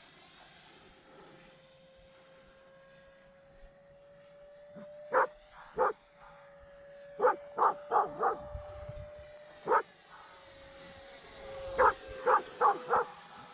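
A dog barking at a turtle: about a dozen short barks in clusters, beginning about five seconds in. Under the barks runs a faint steady whine from the small electric ducted-fan RC jet flying overhead.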